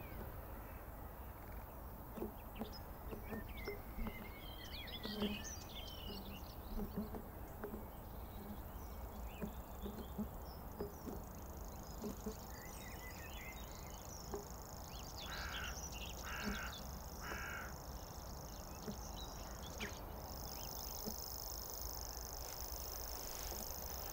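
Grasshopper warbler reeling: a high, steady, insect-like trill that comes in about halfway and grows louder near the end. Other birds chirp early on, and three short calls from another bird come in the middle.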